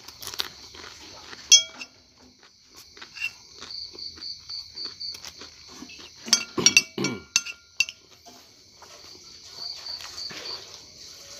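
A metal spoon scrapes and clinks against a ceramic plate, with a sharp ring about a second and a half in and a quick cluster of clinks in the middle. Crickets chirp steadily behind, with short pulsed trills twice.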